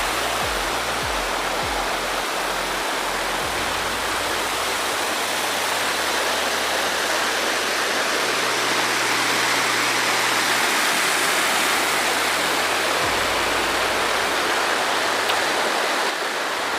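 Waterfall: a steady, even rush of falling water, with soft background music under it, its low bass notes changing every few seconds.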